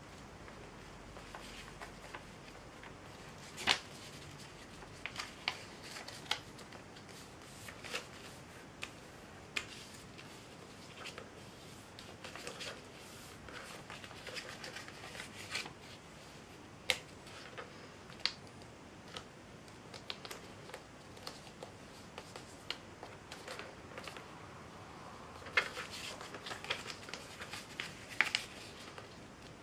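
A sheet of printer paper being folded and creased by hand: scattered rustles and crinkles with sharp creasing snaps, the loudest about four seconds in and a busy run of them near the end.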